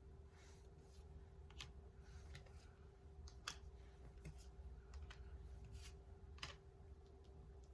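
Faint clicks and soft swishes of tarot cards being handled and laid down on a table, a dozen or so scattered taps, over a low steady hum.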